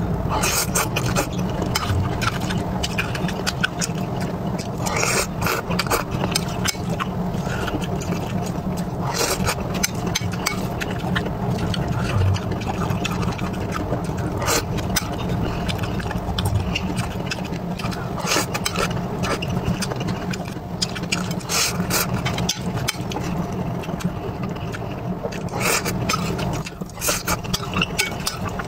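Close-miked mukbang eating: chewing and mouth sounds, with a metal spoon scooping, clinking and scraping on a ceramic plate in scattered short clicks, over a steady low hum.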